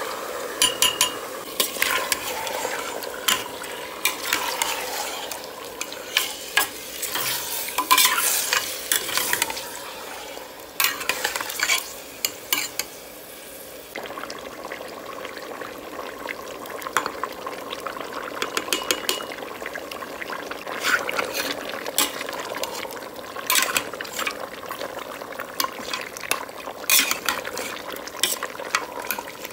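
Mutton pieces sizzling in a cooking pot, with a metal spoon scraping and clinking against the pot in short bouts as the meat is stirred.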